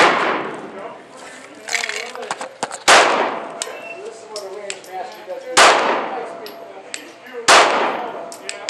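9mm Glock 19 pistol fired four times, about two to three seconds apart, each shot followed by a fading echo. Small clinks sound between the shots.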